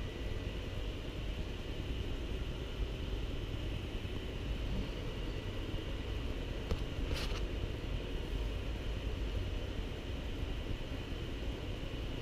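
Steady low rumble and hiss of background noise, with one brief scratchy rustle about seven seconds in.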